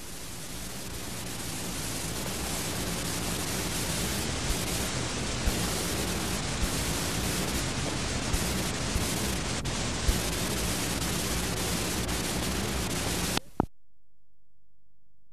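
Videotape playback static: a steady hiss with scattered clicks and pops, swelling over the first couple of seconds. It cuts off abruptly with a click near the end.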